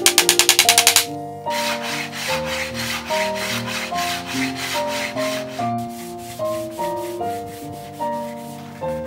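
Sandpaper rubbed by hand over the wood of a wooden stool in quick back-and-forth strokes, over light piano music. A rapid run of sharp ticks comes in the first second.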